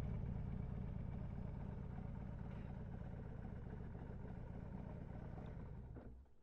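Harley-Davidson Road Glide Ultra's air-cooled V-twin engine running low and steady as the bike rolls slowly to a stop. The engine sound eases gradually, then cuts off about six seconds in.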